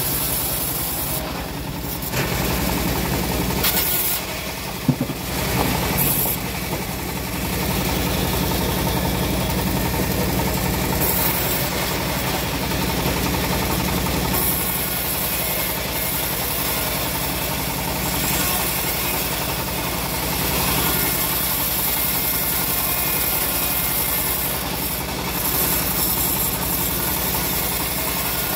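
Engine-driven homemade bandsaw mill running steadily, its band blade sawing lengthwise through a teak log, with one sharp knock about five seconds in.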